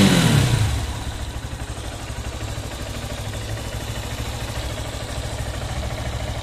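Honda CB190R's single-cylinder engine coming down from a rev in the first second, then idling steadily with an even pulsing beat. Lucas oil stabilizer has been freshly mixed into its oil.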